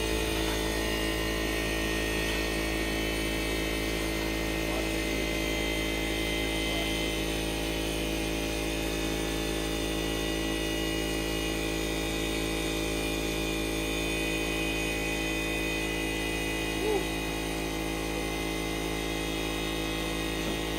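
Steady machine hum made of a low drone and several constant tones, unchanging throughout, with one light knock about 17 seconds in.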